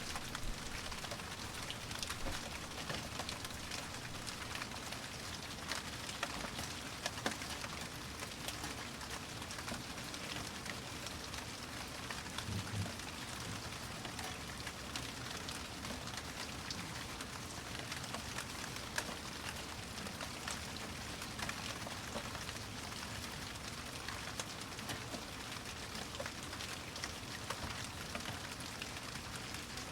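Steady rain falling: an even hiss with many individual drops ticking on a surface.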